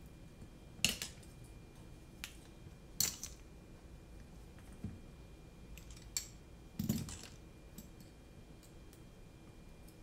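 Scattered clicks and light knocks of carbon-fibre drone frame parts and hex drivers being handled and set down on a silicone work mat, about six in all, the sharpest about a second in and about three seconds in.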